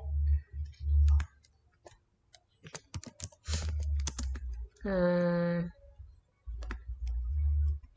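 Computer keyboard typing: a scattered run of key clicks, thickest in the first half, as a word is typed. About five seconds in comes a short held hum of a voice, and there are bursts of low rumble throughout.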